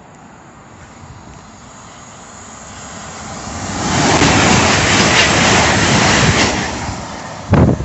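CrossCountry Class 220/221 Voyager diesel train running through the station at speed without stopping. Its noise builds over a few seconds, is loudest for about two and a half seconds as it rushes past, then fades. A short, loud thump near the end.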